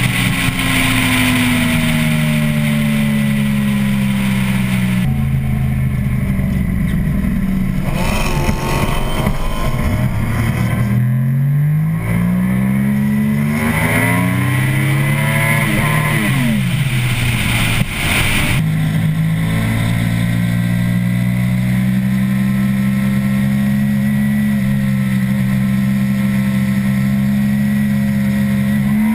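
Inline-four sport bike engine ridden at highway speed, heard from on the bike with wind rush over it; the engine note climbs and drops several times with throttle and gear changes, then holds fairly steady for the last ten seconds.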